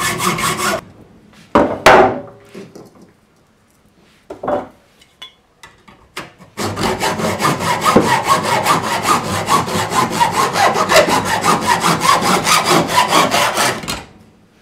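Hacksaw cutting through the steel can of an oil filter clamped in a vise, in quick, steady back-and-forth strokes. The sawing stops about a second in, leaving a few brief knocks and scrapes, then starts again for the second half. The can, which the owner thinks is a cheaper tin, cuts easily.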